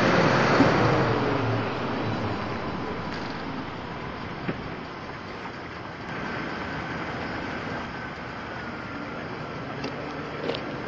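Vehicle noise: a pitched engine sound falls and fades over the first couple of seconds, then a steady, quieter vehicle rumble continues.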